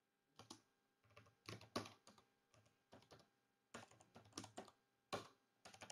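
Faint, uneven keystrokes on a computer keyboard as a terminal command is typed out.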